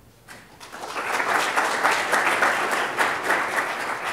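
Audience applauding: many hands clapping that build up over the first second, hold steady, then begin to taper off near the end.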